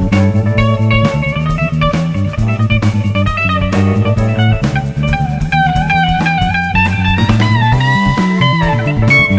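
Live band playing an instrumental passage: electric guitar over bass and drum kit, with sliding, long held guitar notes in the last couple of seconds.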